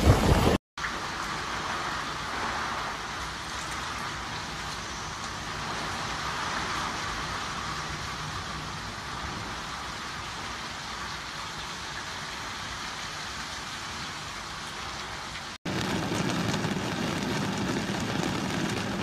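Heavy storm rain and wind, an even rushing hiss of downpour. A short dropout comes about half a second in. About fifteen seconds in, the sound cuts to louder rain with a steady low hum under it.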